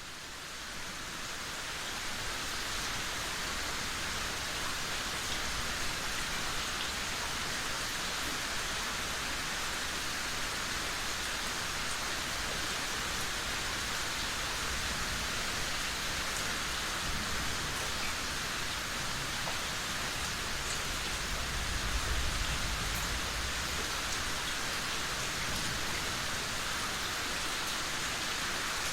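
Steady rain falling, fading in over the first couple of seconds and then holding even, with a brief low rumble about three-quarters of the way through.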